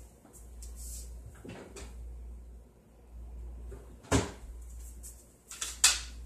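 Kitchen handling noises: a few short, sharp knocks and clatters, the loudest about four seconds in and a couple more near the end, over a steady low hum.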